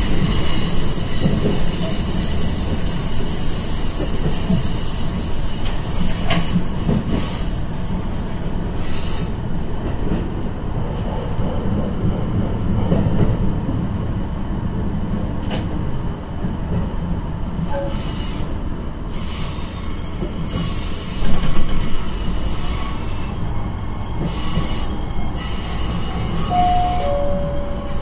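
Recorded cabin sound of a KiHa E120 diesel railcar running: a steady rumble of engine and wheels on rail. About 21 seconds in there is a brief louder low thump.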